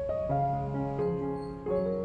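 Background instrumental music with keyboard notes, a new note or chord starting every half second or so.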